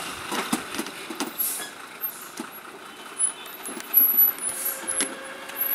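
Heavily loaded Ashok Leyland lorry crawling round a tight hairpin bend, with irregular knocks and thumps from its rear tandem axle, whose tyres hop and lift on this bend. Two short hisses of air are heard, about a second and a half in and near the end.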